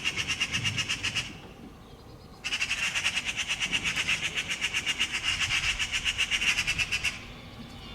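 Eurasian magpies giving their harsh chattering alarm rattle, fast repeated notes about nine a second, in two bouts: a short one at the start and a longer one from about two and a half seconds in to near the end. It is the scolding call of magpies mobbing a cat near their fledgling.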